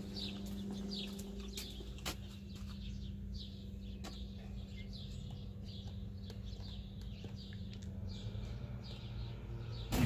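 A small bird chirping over and over, a short falling chirp every half second or so. A low steady hum fades out about two seconds in, followed by a single sharp click.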